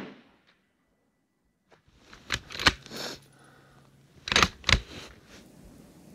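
Bolt-action precision rifle being cycled between shots: the bolt is worked, giving a handful of sharp metallic clicks and clacks in two clusters, about two seconds in and about four and a half seconds in. The last of a rifle shot's report dies away at the very start.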